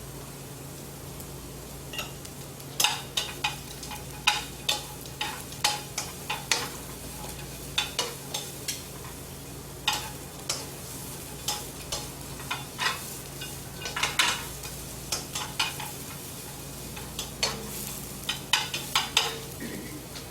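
Vegetables sizzling as they are stir-fried in a little vegetable oil, with a cooking utensil clacking and scraping against the pan in irregular strokes from about two seconds in.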